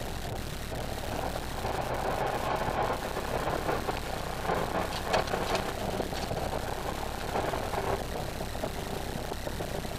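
Renault Mégane R26.R's 2.0-litre turbocharged four-cylinder engine running hard under load, heard from inside the cabin, with road and tyre noise. A few sharp knocks about halfway through.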